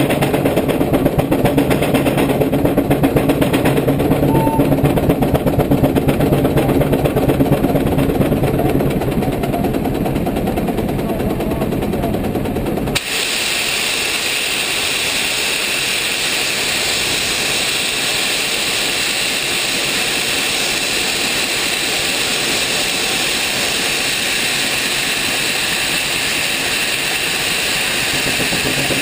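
Case 110 hp steam traction engine working hard on a brake, its exhaust beating rapidly. About halfway through, the exhaust beat stops abruptly and a steady, loud hiss of steam blowing off takes over.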